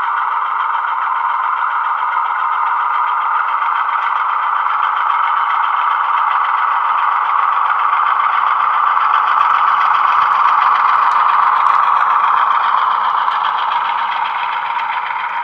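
DCC sound decoder in a model Class 35 Hymek locomotive playing its diesel engine sound through a small bass-enhanced speaker, a steady, thin-sounding engine note with little low bass. It grows louder about eleven seconds in as the model passes close by, then fades near the end.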